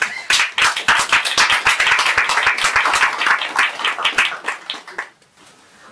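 Audience applauding: dense, irregular clapping that dies away about five seconds in.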